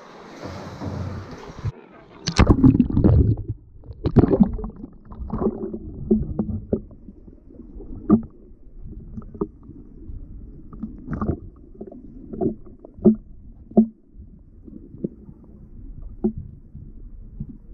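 An action camera plunges underwater about two seconds in with a loud splash. After that the sound is muffled water heard through the submerged camera housing, with irregular dull knocks about once a second.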